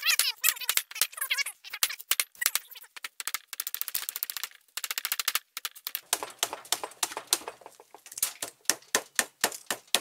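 Hammer tapping on a microwave oven transformer's laminated steel core to drive the secondary coil out of its slot: runs of quick, light metallic taps, some with a brief ring.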